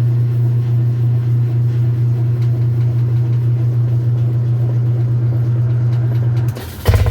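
Whirlpool-built top-load washer spinning, its motor giving a steady low hum; about six and a half seconds in the hum cuts out and the brake catches with a loud clunk followed by rattling as the tub stops. The noise is abnormal: the drive block that holds the tub has lifted out of its position.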